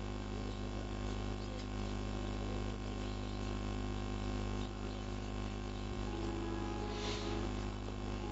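Steady electrical mains hum and buzz from a public-address sound system: a low drone with a stack of fainter steady tones above it.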